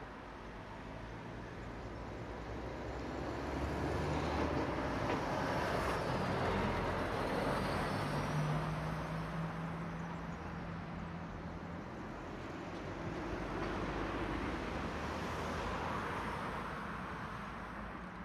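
Street traffic: cars driving past, the noise swelling and fading twice, with a low engine hum under the second half of the first pass.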